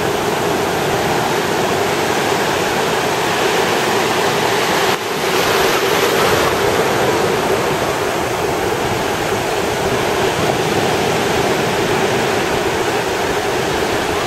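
Ocean surf, waves breaking and washing up the beach in a steady rush. A wave breaks more loudly about five seconds in.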